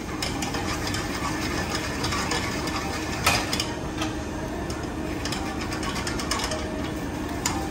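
Food sizzling in frying pans on portable tabletop burners, a steady hiss with fine crackling. A utensil clinks sharply about three seconds in and again near the end.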